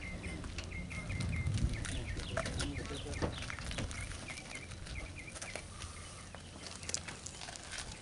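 A bird chirping in quick runs of short, high, same-pitched notes, repeated several times, over a low wind rumble on the microphone that eases after the first few seconds, with faint scattered knocks.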